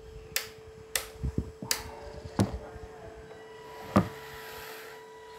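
Plastic clicks from the toggle switches and casing of a FlySky CT6B RC transmitter being worked by hand: five sharp clicks, the loudest about four seconds in, over a faint steady hum.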